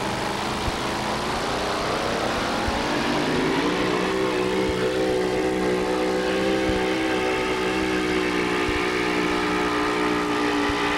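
Keith Black 500-cubic-inch Chrysler Hemi in a Model T Ford-bodied two-wheel-drive pulling truck, revving up over the first few seconds, then held at steady high revs under load as it drags the weight sled down the track.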